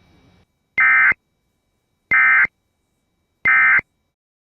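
Emergency Alert System end-of-message data tones: three short, loud, buzzing digital bursts about a second and a half apart, signalling the close of the alert.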